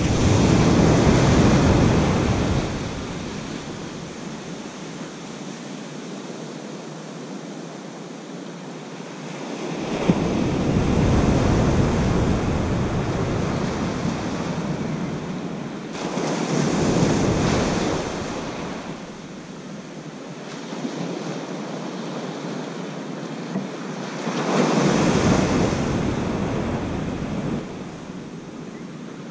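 Ocean surf washing onto a sandy beach: four waves swell up and fade away over a few seconds each. Wind rumbles on the microphone as the louder swells come in.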